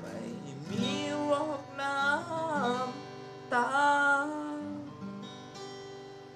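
Acoustic guitar strummed and ringing under a singer's long, pitch-bending held notes. Near the end the voice stops and the guitar chord fades away.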